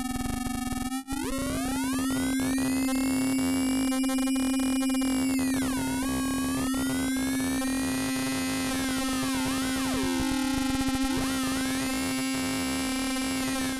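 Bugbrand Bug Crusher synthesiser effect holding a steady low drone while its light-sensing 'Eye' sweeps the modulation and filter cutoff, so the ring-modulated, bit-crushed overtones glide up and down in slow swoops. The sound cuts out briefly about a second in.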